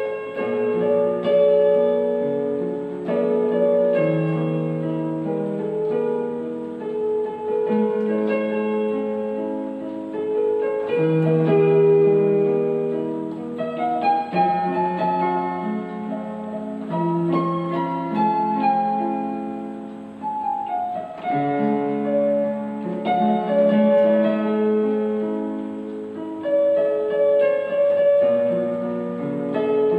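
Solo piano music from an electronic keyboard's piano voice played with both hands: a slow, flowing melody over held broken chords.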